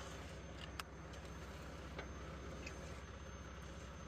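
Concrete mixer truck's diesel engine running steadily at a low idle, with a few faint clicks about one second in and again at two seconds.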